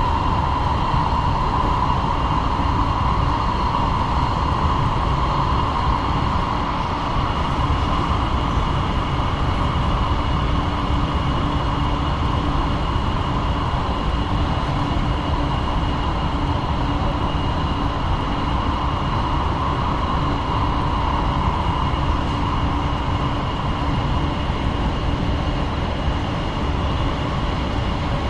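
Los Angeles Metro Rail train running, heard from inside the car: a steady rumble with a whine that swells and fades.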